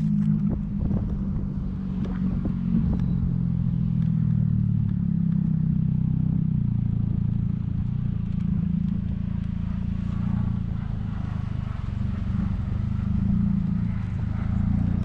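An engine running steadily, a low drone whose pitch wavers slightly, with a few faint clicks in the first few seconds.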